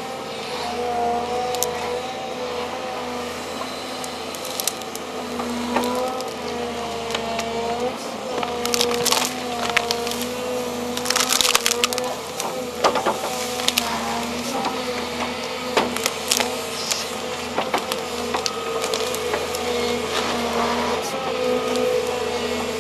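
Volvo excavator's engine and hydraulics running steadily under load while tree roots crack and splinter as they are torn out of the ground, with the loudest snaps about nine and eleven seconds in.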